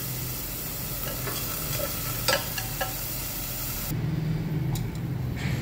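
Dried shrimp sizzling in hot oil in a stainless steel pot, with a few light clicks from stirring against the pot. The sizzle drops out suddenly about four seconds in.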